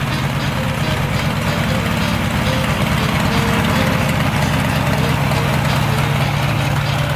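Cessna 195's seven-cylinder Jacobs radial engine idling steadily on the ground with the propeller turning, a deep, evenly pulsing run.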